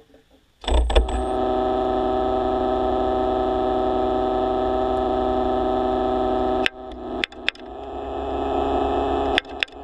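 A motor's steady hum with a low rumble, heard underwater, starts abruptly about a second in, then cuts out briefly several times near the end.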